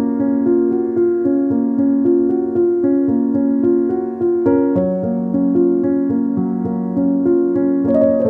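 Background music: a gentle piano or electric-piano melody of evenly paced notes over sustained chords.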